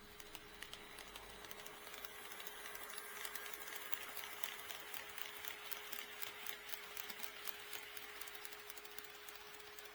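HO scale model train running past on KATO Unitrack: a rapid run of wheel clicks over the rail joints that grows louder toward the middle of the pass and then fades. A steady hum continues underneath.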